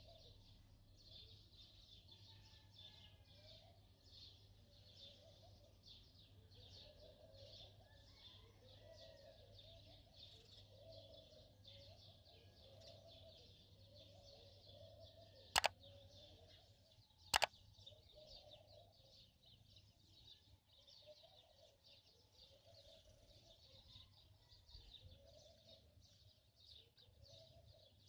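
Faint birdsong, a steady chatter of chirps with lower repeated calls over a low hum. Two sharp clicks about a second and a half apart stand out midway.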